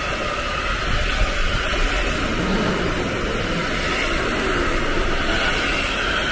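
A train passing on the line, a steady rumble of wheels on rail.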